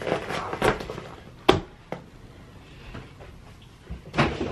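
Packaging being handled: a few sharp knocks and taps, the loudest about one and a half seconds in, and a short burst of handling noise near the end.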